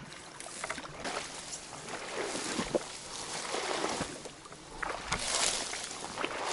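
Water sloshing and swishing around the legs of a person wading knee-deep through shallow water and horsetail reeds, in several uneven surges, the largest about two and five seconds in.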